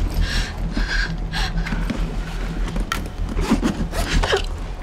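Low steady hum inside a city bus, with scattered scraping and rustling as a passenger shifts and reaches across the seat.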